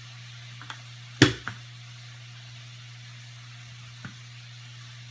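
Wooden rolling pin knocking and tapping on the counter as pastry is rolled out: one sharp knock about a second in, a lighter one just after, and a few faint taps, over a steady low hum.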